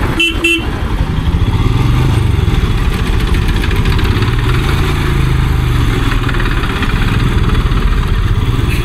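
Two short vehicle-horn toots from another vehicle right at the start, then the low, steady running of the motorcycle moving slowly through traffic, its engine note dipping and swelling.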